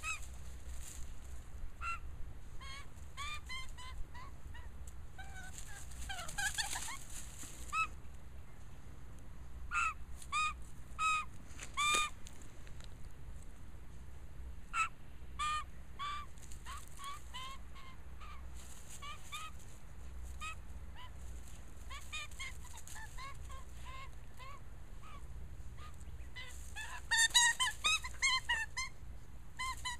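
Young Australian magpie calling in short, repeated squawks, scattered through and then in a quick, loud flurry near the end.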